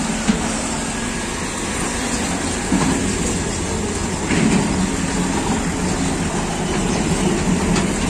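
Farm tractor's diesel engine running as it passes close by, pulling a trailer over a rough dirt track, with a few sharp knocks near the start and about three seconds in.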